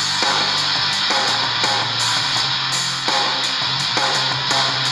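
Rock music with strummed electric guitar and drums playing through the Tecsun R-9700DX portable radio's speaker, received from a low-power FM transmitter.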